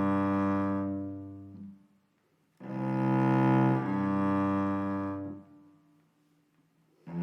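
Background music of sustained low string notes, played in phrases that break off into silence twice before a new phrase starts near the end.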